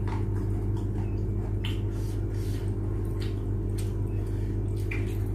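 Small wet clicks and squishes of eating and of food being picked apart by hand, a few of them scattered through, over a steady low hum.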